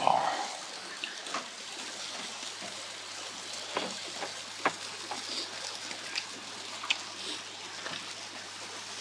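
Slices of pork sizzling on a wire grill grate: a steady hiss with scattered sharp pops and crackles. A short, louder noise comes right at the start.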